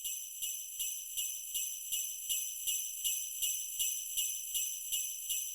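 Jingle bells shaken in a steady beat of about 160 a minute (roughly two and a half shakes a second), bright and high-pitched.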